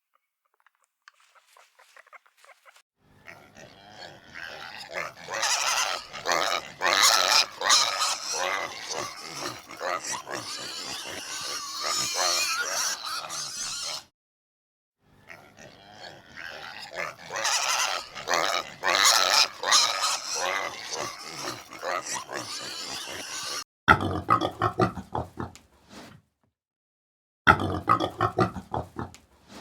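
Pigs grunting and oinking in a series of edited clips that start and stop abruptly. A long stretch of many grunts comes twice, and near the end two shorter bursts of louder, closer grunts follow.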